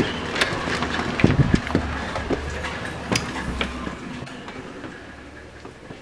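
Handheld camera jostled about, with scattered knocks and clicks over a low rumble that fades out in the last couple of seconds.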